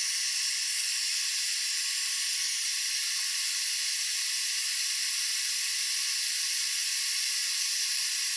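INGCO HG200028 2000 W heat gun running on its third, hottest setting: a steady hiss of air blowing from the nozzle, even in level throughout.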